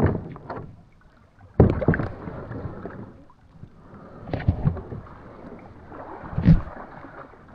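Kayak paddle strokes splashing and dipping in the water, irregular, with three sudden louder splashes or knocks spread through.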